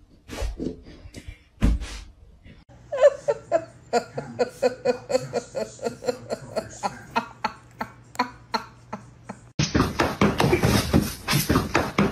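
A person laughing in a quick run of short bursts, about three to four a second; about nine and a half seconds in it gives way to another, louder stretch of laughter.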